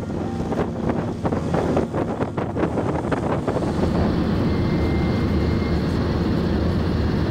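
Wind and road noise of a car travelling at motorway speed, heard from inside the cabin: a steady, low-heavy rumble in the second half, with gustier noise and irregular thumps in the first few seconds.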